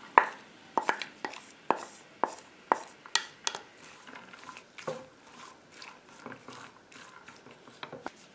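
A spoon knocking and scraping against a cooking pot as vegetables are stirred: sharp clicks about twice a second for the first few seconds, a single knock about five seconds in, then only faint scraping.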